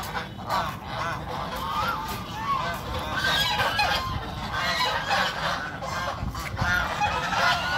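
A flock of domestic geese honking, many short calls overlapping one another.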